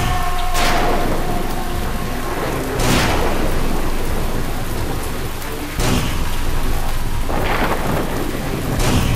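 Heavy rain pouring steadily, broken by about five sudden claps of thunder.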